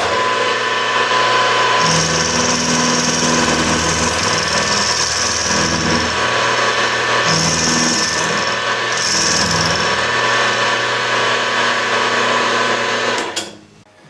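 Milling machine running, its end mill taking a rough cut across the tops of speaker binding-post jack hubs clamped in a vise: a steady motor whine with stretches of louder cutting noise. It cuts off shortly before the end.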